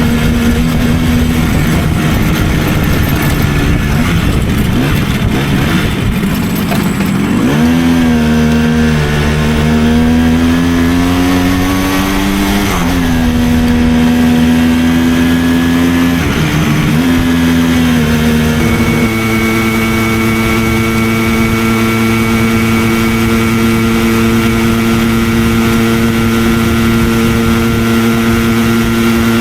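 Simson 50cc single-cylinder two-stroke moped engine under way: about a quarter of the way in it revs up, its pitch rising, drops twice at gear changes, then settles into a steady cruising note for the last third.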